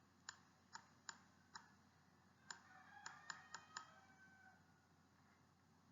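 Faint clicking: about nine short, sharp clicks, four spaced evenly through the first second and a half, then a quicker cluster of five around the third to fourth second, in an otherwise near-silent recording.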